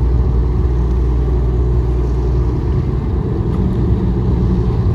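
Car ferry's engines and propellers running with a steady low rumble and drone as the ship manoeuvres against the quay to berth.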